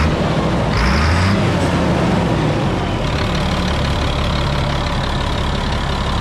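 1999 GMC C6500 truck engine idling steadily, heard close up from the open engine bay. A short rush of noise rises over it about a second in.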